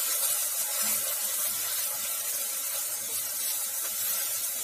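Onion, garlic and tomato puree sizzling in a nonstick frying pan: a steady hiss.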